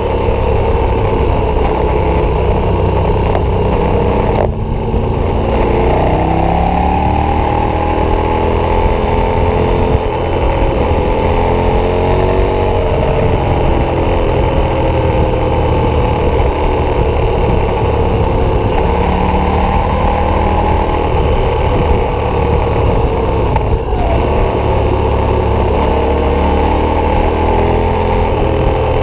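KTM 1190 Adventure's V-twin with an aftermarket Wings exhaust, running under way with wind rush. The throttle closes briefly about four and a half seconds in, then the revs rise as the bike pulls away again, with another short dip near the end.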